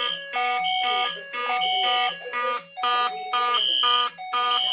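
Several fire alarm horns on a Notifier NFS2-640 system sounding together in a drill. Their overlapping repeating on-off patterns include a recurring high steady tone.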